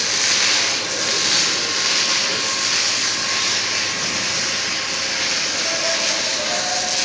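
A loud, steady hiss.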